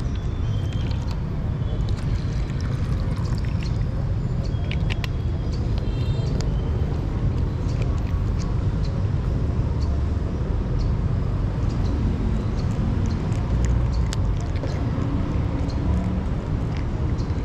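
Cat crunching dry kibble close to the microphone, with sharp crunches scattered through, over a steady low rumble.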